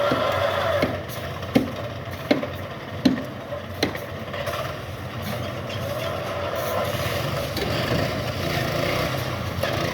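An engine running steadily, its pitch wavering slightly, with four sharp knocks a little under a second apart between about one and a half and four seconds in.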